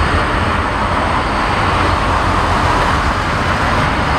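Jet engines of a Boeing 747-400 climbing out after takeoff: a steady, loud noise.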